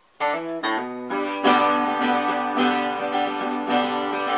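Acoustic guitar playing: a few single picked notes, then strummed chords from about a second and a half in.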